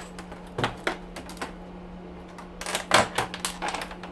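Sharp plastic clicks and clatter as an air purifier's plastic housing and clips are pried apart: a few scattered clicks in the first second and a half, then a quick run of them around three seconds in.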